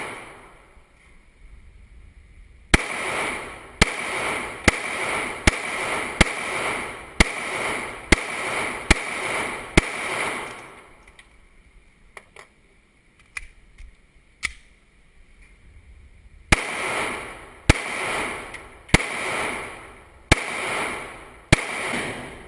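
A string of about nine gunshots at an uneven, fairly quick pace, each with a long echoing tail, then a pause with a few faint clicks, then about five more shots.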